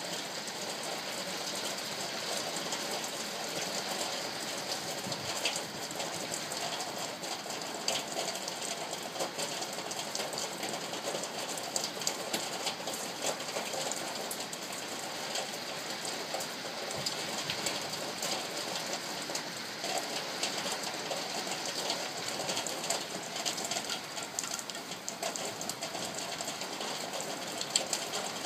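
Heavy rain falling on an old tin roof: a dense, steady patter of countless drops, with sharper single ticks now and then standing out from it.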